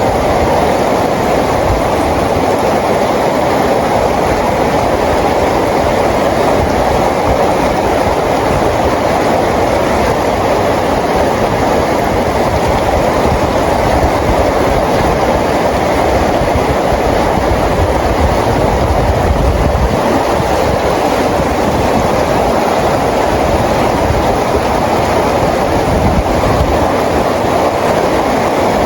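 Rain falling steadily, a dense, even rushing noise that does not change.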